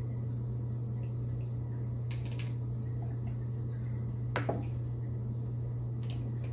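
Small clicks and taps of a hot sauce bottle and a spoon being handled, over a steady low hum, with one brief falling sound a little past the middle.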